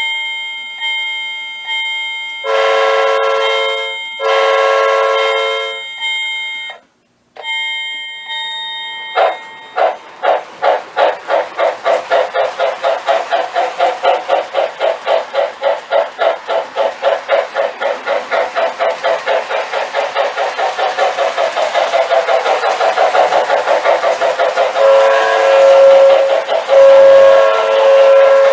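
Sound system of an MTH Rail King O-gauge Pennsylvania Railroad 6-8-6 turbine locomotive model: a bell ringing about once a second and two long whistle blasts, then a rhythmic chuffing that quickens as the locomotive gets under way, with louder whistle blasts near the end.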